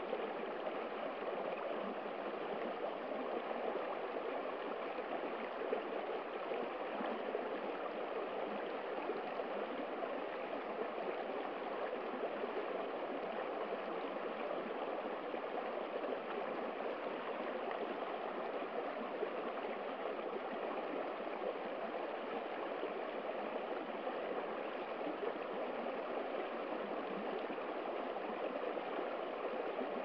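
Shallow stream running fast over rocks and a small drop: a steady, even rush of water with no let-up.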